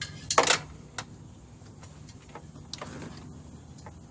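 Clicks and light rattles of small parts being handled: a quick cluster of sharp clicks about half a second in, another click a second in, then fainter ticks and rustling, over a faint steady low hum.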